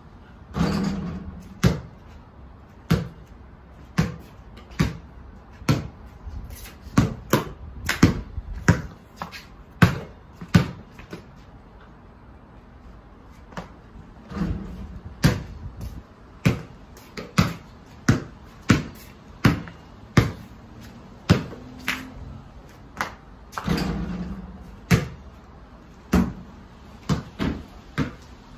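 A basketball bouncing on patio paving slabs: sharp single bounces in runs, often less than a second apart. Three longer, ringing knocks come where shots strike the portable hoop, about a second in, midway and a few seconds before the end.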